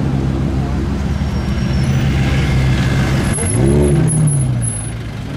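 A car engine idling with a steady low hum, then blipped once about three and a half seconds in, its pitch rising and falling back over about a second.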